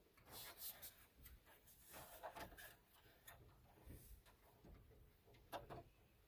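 Faint scattered clicks and rubbing from hands handling dash wiring harness connectors and plastic trim while plugging things back in.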